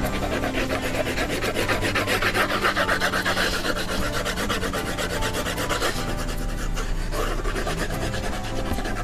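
Fast, even back-and-forth scratching of a drawing tool rubbed across paper, as in shading a sketch.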